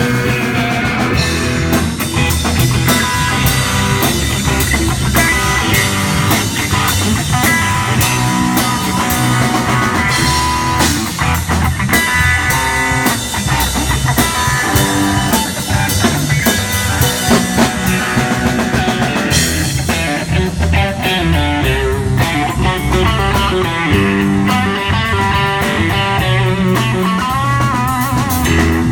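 Rock band playing an instrumental passage without vocals: guitar carrying the melody over a drum kit.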